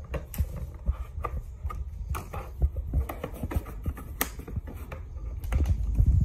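Handling noise of wet/dry vacuum parts and accessories being fitted together: scattered clicks, taps and scrapes over low bumping, with louder thumps near the end.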